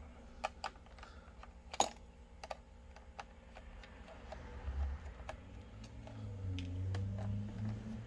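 Scattered light clicks and ticks of a Phillips screwdriver working small screws out of a laptop's plastic bottom case, with one louder click about two seconds in and a faint low hum near the end.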